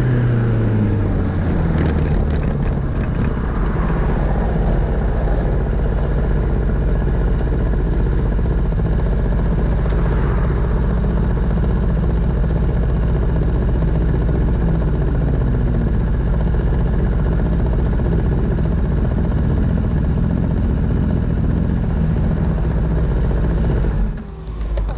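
Honda CBR1000RR's inline-four engine winding down, its note falling over the first second or two, then idling steadily with the bike stopped. Other vehicles pass now and then, and the sound cuts off near the end.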